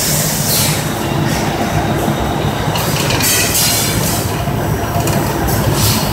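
Sprinkler hose manufacturing machine running: a loud, steady metallic clatter and rumble, with a high hiss that swells and fades every second or so.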